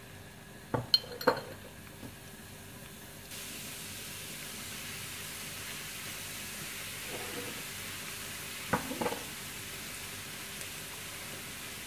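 Chopped garlic frying in hot oil in a non-stick pan, a steady sizzle that starts abruptly about three seconds in. A silicone spatula stirs it and knocks against the pan a couple of times near the start and again about nine seconds in.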